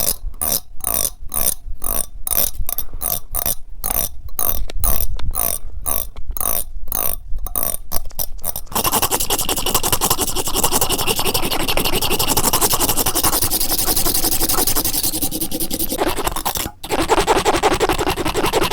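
Hair-combing strokes scraped directly against a TASCAM recorder's microphones, in a steady rhythm of about two to three strokes a second. About nine seconds in, they turn into fast, continuous scratching with one brief break.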